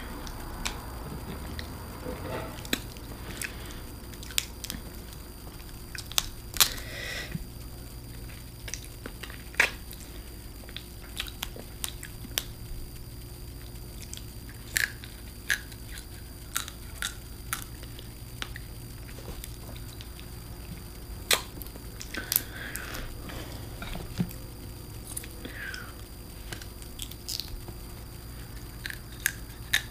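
Crab being eaten close to the microphone: the shell is cracked and picked apart, with chewing between. Scattered sharp cracks and clicks come every second or two over a steady low hum.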